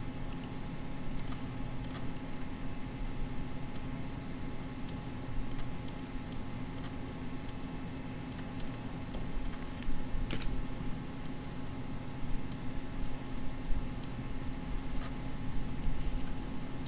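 Scattered, irregular clicks of a computer mouse as spline vertices are selected and dragged, over a steady low background hum.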